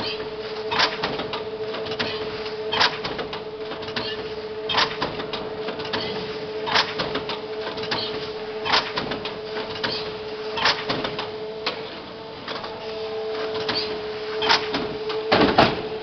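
fisher+rückle Cross Master veneer splicing machine running through its work cycle: a steady hum with a sharp clack about every two seconds and lighter clicks in between. A heavier knock comes near the end.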